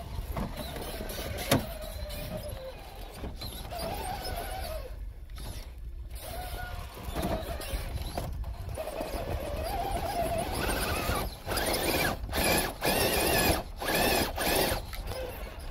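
Axial SCX6 RC rock crawler's electric motor and gear drivetrain whining in stop-start spells as it climbs rock ledges, the pitch rising and falling with the throttle. There is a sharp click about a second and a half in, and the whine comes in louder pulses near the end.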